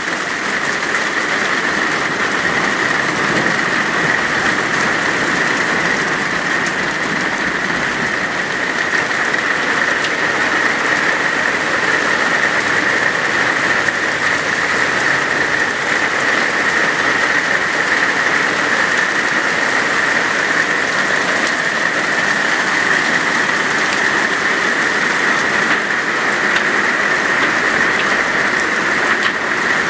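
Hail falling heavily onto a tiled patio: a steady, dense patter of small hailstones striking hard ground.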